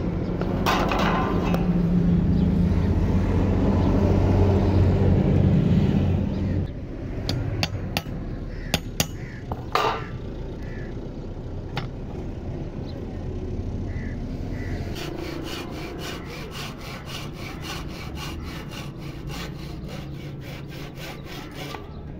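Hand saw cutting through a wooden handle blank in rapid, even strokes, starting about two-thirds of the way in. Before it come a steady low hum with scraping, then a few sharp taps on the wood and steel.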